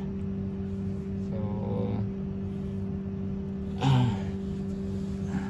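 Steady low mechanical hum of a room appliance. A faint voice murmur comes about a second and a half in, and a short, louder vocal sound about four seconds in.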